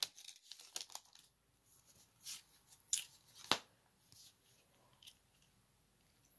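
Foil wrapper of a Pokémon booster pack being handled and torn open, cards slid out: a few short crinkles and snaps, the sharpest about three and a half seconds in.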